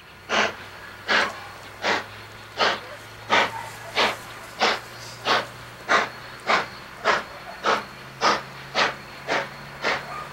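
Steam locomotive exhaust chuffing in sharp, regular beats that get gradually quicker, from well under two a second to about two a second, over a steady low hum.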